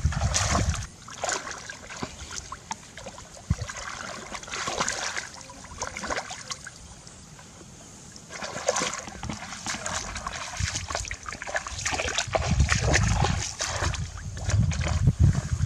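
Shallow water splashing and sloshing in irregular bursts, with a quieter pause about halfway through.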